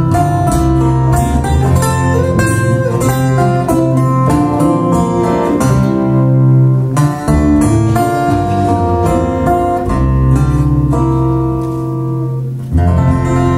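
Acoustic guitars playing the instrumental close of a folk song, picked notes over strummed chords, with a fresh chord struck near the end.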